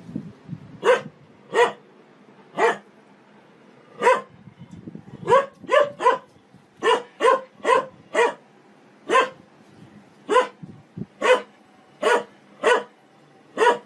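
Dog barking at a washing machine's turning drum: about seventeen short, sharp single barks, roughly one a second, now and then two or three in quick succession.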